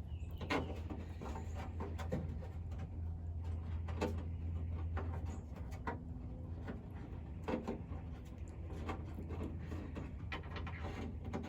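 Scattered light clicks and knocks of hands working small plastic parts and wiring connectors of a truck-bed light housing, at irregular intervals over a low steady hum.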